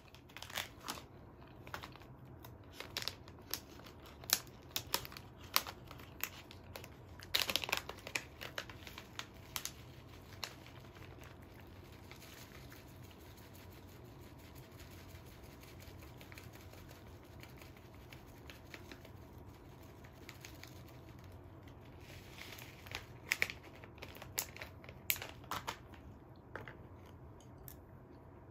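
Plastic seasoning packet crinkling as it is handled and its contents are sprinkled over a bowl of rice, with small clicks from the tableware. It comes in two busy stretches of sharp crackles, with a quieter spell between them.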